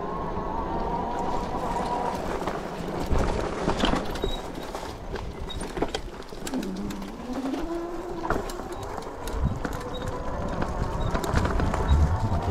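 Fat-tire electric bike climbing a rocky trail: the electric hub motor whines under load, its pitch rising about six to eight seconds in, while the tires clatter and knock over loose rocks.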